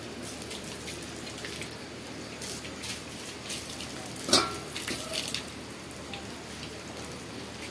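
Water splashing and dripping as a stainless steel plate is rinsed at an outdoor pipe. Small scattered clicks throughout, and one sharp metallic clank of the plate a little past four seconds in.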